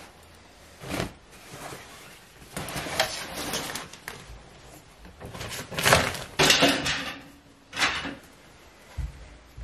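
Rustling and bumping of clothes and zipped fabric storage bags being packed into the wooden base of a lift-up storage bed, in irregular bursts with the busiest stretch about halfway through.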